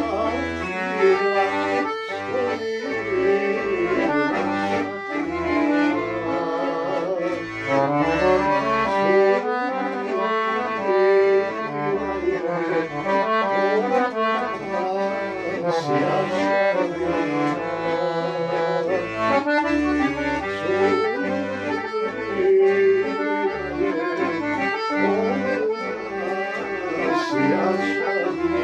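Dallapè piano accordion played solo: a continuous keyboard melody over a steady rhythm of short bass notes.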